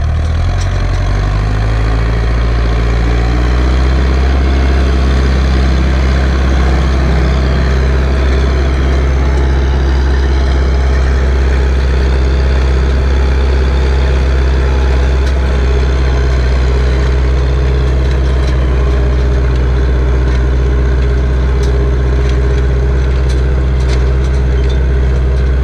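Turbocharged Ursus C-360 tractor's four-cylinder diesel engine running steadily under load while it pulls a 3.4 m cultivator through freshly ploughed soil. The engine note shifts during the first couple of seconds, then holds an even drone.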